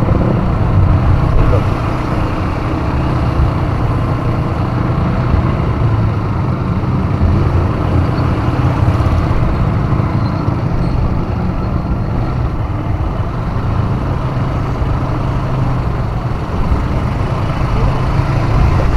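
ATV engine running steadily with a constant low drone.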